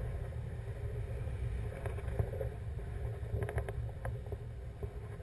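Wind buffeting the camera microphone on a tandem paraglider in flight, a steady low rumble. A few faint clicks come about three and a half seconds in.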